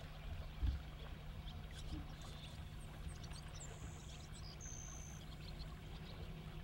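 Faint flow of a small, shallow stream, under a steady low hum, with a few short, thin high whistles near the middle.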